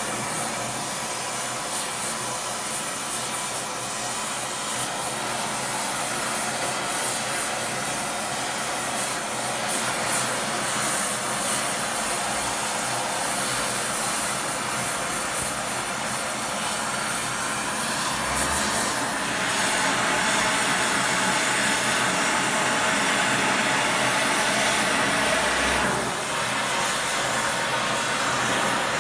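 A blacksmith's forge running with a loud, steady rushing noise that shifts in tone about two-thirds of the way through.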